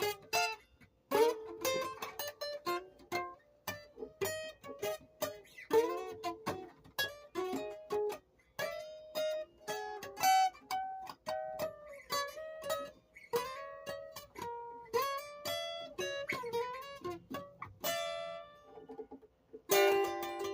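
Music played on a plucked string instrument such as a guitar: a quick run of single picked notes that ring and fade, with a short pause near the end before another note is struck.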